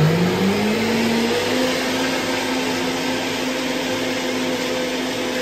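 Countertop blender running at full speed, blending pancake batter. Its motor pitch rises over about the first second and a half as it spins up, then holds steady.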